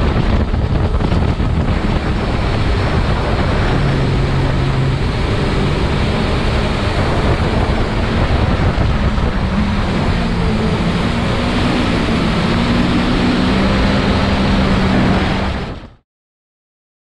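A bass boat's 250 hp outboard running at speed, with the hull rushing through the river water and wind buffeting the microphone. The sound is loud and steady, then cuts off suddenly near the end.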